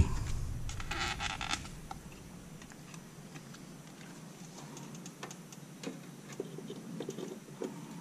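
Handling of DDR4 memory modules (RDIMMs) going into a workstation's motherboard slots: a short scrape about a second in, then scattered light clicks and taps as the modules are set loosely into the DIMM slots.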